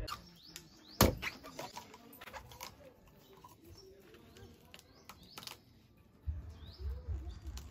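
Sharp knocks of a large knife chopping into green coconuts, one loud strike about a second in and lighter cuts after it, with birds chirping. A low hum comes in near the end.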